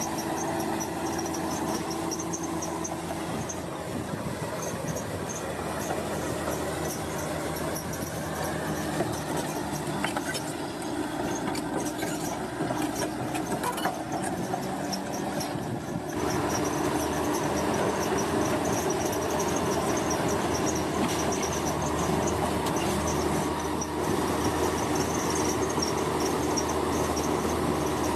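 Heavy road-construction machinery working: a steady engine drone with a thin, high metallic squeal over it, growing a little louder about halfway through.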